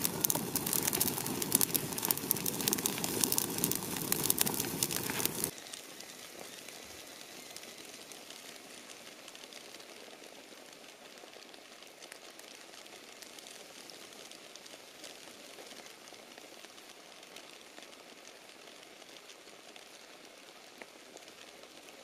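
A wood fire burning with dense crackling. About five seconds in it cuts to a much quieter, steady fine sizzling, which seems to be a foil-wrapped apple boiling in its own juice in the hot ashes.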